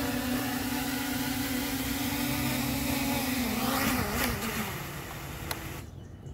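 Small FPV quadcopter's motors and propellers buzzing steadily in a low hover. About three and a half seconds in the pitch wavers as the quad settles down, then the sound fades and cuts off shortly before the end as the motors stop.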